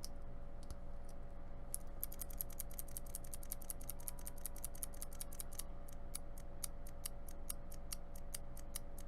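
Mechanical keyboard switch capped with a KP Republic keycap being pressed over and over: light plastic clacks, a few scattered at first, then a quick steady run of about six a second from about two seconds in.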